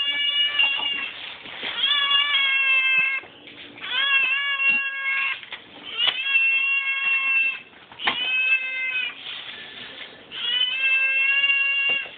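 Hungry cat begging for food at feeding time: six long, drawn-out meows, one after another, each lasting a second or more with a short pause between.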